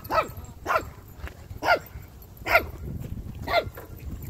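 A dog barking again and again, five short barks each dropping in pitch, roughly a second apart.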